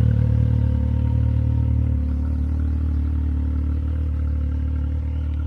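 Can-Am Maverick X3's turbocharged three-cylinder engine idling steadily through an Evolution Powersports full exhaust.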